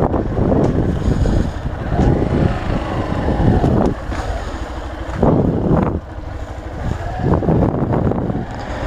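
Yamaha YS Fazer 150 single-cylinder motorcycle riding off, its engine running under heavy wind noise on the microphone, the level swelling and dropping several times.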